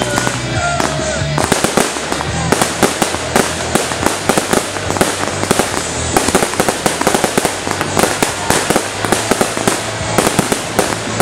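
Music ends about a second and a half in. A fireworks display follows, with rapid bangs and crackling going off several times a second.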